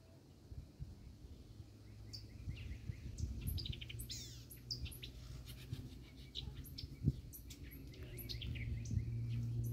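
Songbirds chirping and calling, with many short high notes and quick trills, over a low steady rumble that gets louder toward the end. There is one sharp knock about seven seconds in.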